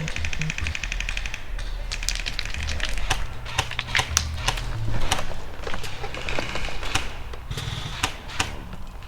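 Airsoft gun firing in full-auto bursts: a fast, even stream of sharp clicks for about the first second and a half and again around two seconds in, then scattered single shots and clacks.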